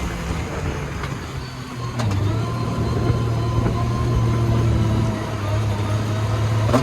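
Vehicle engine running at a steady speed, a low steady hum that becomes stronger about two seconds in.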